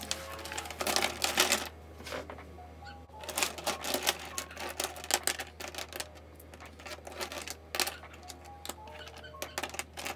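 Plastic pens clattering and clicking against one another and on the desk top as they are taken out of a pencil pouch and laid out, in quick bunches of clicks with short pauses between.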